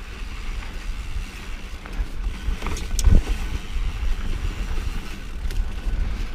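Wind buffeting the microphone and a mountain bike rolling fast over rough singletrack, a steady low rumble, with a sharp knock from the bike about three seconds in.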